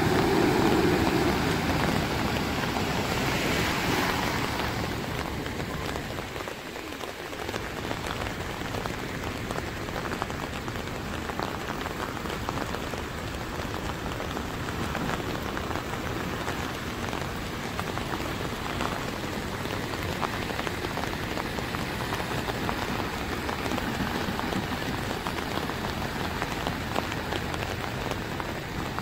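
Heavy rain falling steadily on flooded road water. Over the first few seconds it is louder, with a vehicle wading and splashing through the deep water.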